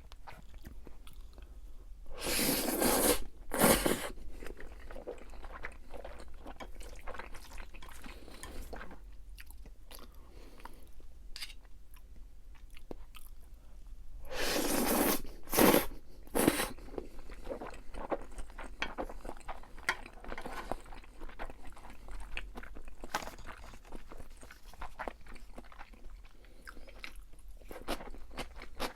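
Close-miked chewing and crunching of crispy fried food, a steady run of small crackles, with two louder, longer bursts, one about two seconds in and one about fifteen seconds in.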